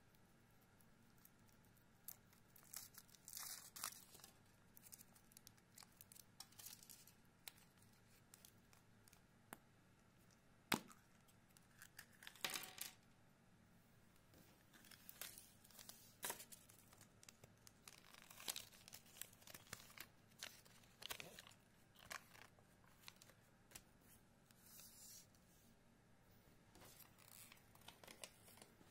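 Foil wrapper of a Kinder Surprise chocolate egg crinkling and tearing as it is peeled off by hand, followed by the handling of the chocolate shell, plastic toy capsule and paper leaflet: scattered short rustles and clicks, with one sharp snap about eleven seconds in.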